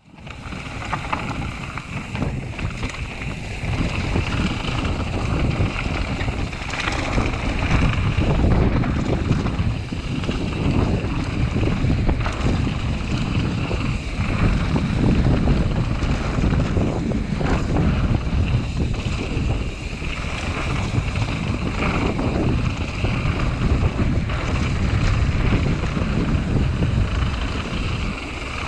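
Mountain bike ridden down a dirt bike-park trail, heard as wind buffeting the microphone over a steady rumble of tyres and bike, with scattered knocks from bumps along the way.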